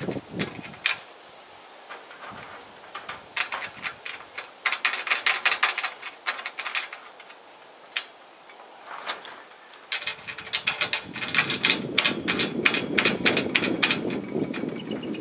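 Two runs of rapid clicking and tapping, separated by scattered single knocks.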